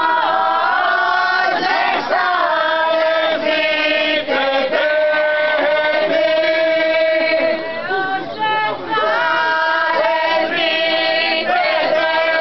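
A group of men and women singing a traditional Arbëreshë vallja dance song, unaccompanied, in long held notes with a short break a little past the middle.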